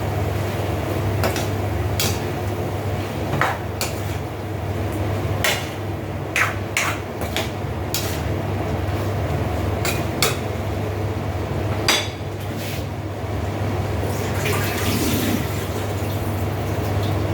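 A metal cooking utensil knocking and scraping against a cooking pot in irregular clinks as string beans are stirred in, over a steady low hum.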